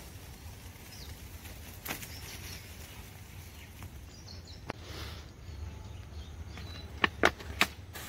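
Low wind rumble on the microphone with faint rustling as a cloth sack is shaken out at ground level. A few sharp, loud clicks come close together about seven seconds in.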